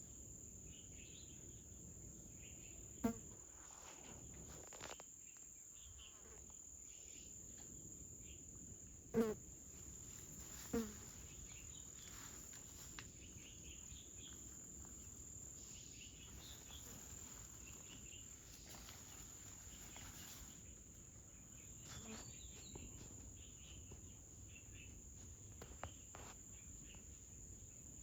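Steady high-pitched trilling of an insect chorus, with three short, louder pitched calls breaking in: one about three seconds in, then two more about nine and eleven seconds in.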